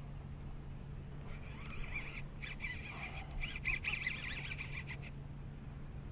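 Drag of a Daiwa Saltist conventional reel buzzing as a hooked striped bass pulls line, in two runs with a wavering pitch. The second run is longer and louder and stops about five seconds in.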